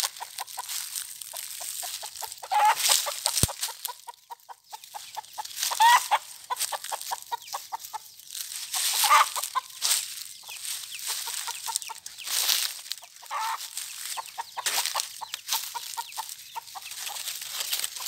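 Mother hen clucking in quick, repeated runs of short clucks, over loud rustling and crunching of dry leaf litter.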